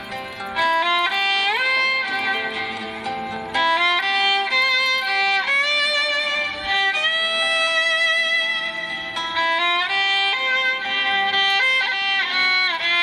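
Background music: a solo violin melody with gliding, held notes over a soft accompaniment.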